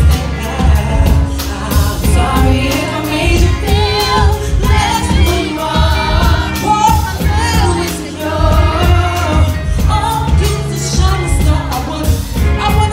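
A woman singing live into a microphone with wavering vibrato over a loud club backing track with heavy bass and a steady beat.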